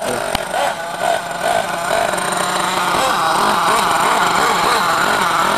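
Nitro RC monster truck's small glow-fuel engine running, revving up and down again and again as the throttle is worked. Short blips come in the first half, then faster, continuous swings in pitch.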